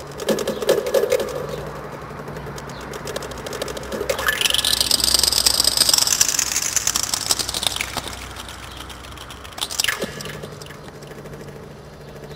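Experimental electronic music made of machine-like textures: a low hum and buzzing with scattered clicks. From about four to eight seconds in, a noisy high sweep rises and falls, and a sharp crack comes near ten seconds.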